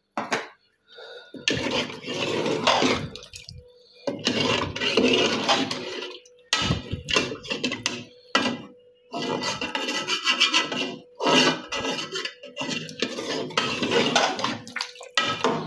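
A long steel ladle stirring chicken and potatoes in thin broth inside an aluminium pressure-cooker pot. It scrapes and clinks against the pot's sides and bottom in repeated uneven strokes with short pauses between.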